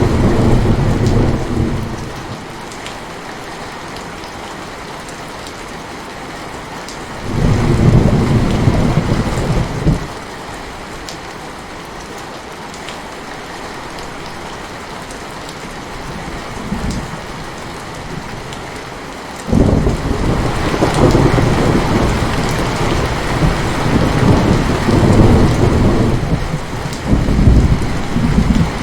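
Heavy rain falling steadily, with deep rolls of thunder: one at the start, another about seven seconds in, a short one near seventeen seconds, and a long rolling stretch from about twenty seconds in.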